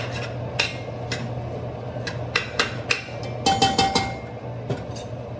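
A metal spoon or spatula knocking and scraping against a cooking pan while onions are stirred and spread out in hot oil: irregular clinks with a short metallic ring, in a quick cluster a little past the middle.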